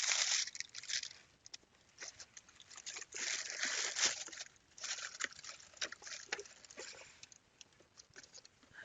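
Intermittent rustling and scraping with light clicks, in several short clumps, from hands handling a pair of kids' hiking boots.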